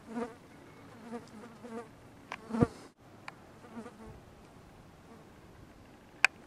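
A flying insect buzzing in several short passes close to the microphone over a quiet background, the loudest pass about two and a half seconds in. A single sharp click comes just before the end.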